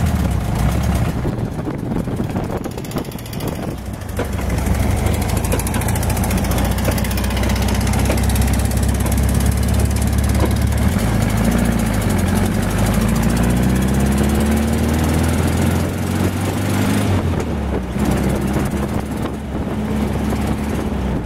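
Dune buggy engine running loud as the buggy drives along. Its pitch climbs through the middle and drops abruptly towards the end.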